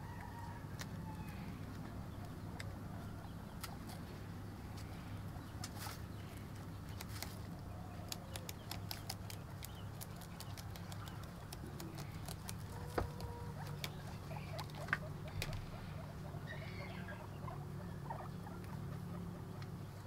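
Guinea pigs chewing fresh grass: a patter of crisp little crunching clicks, thickest about halfway through, over a steady low hum.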